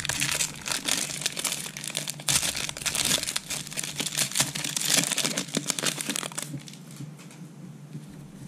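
Plastic wrapper of a trading-card pack crinkling as it is torn open and handled, a dense crackle that dies down about six seconds in.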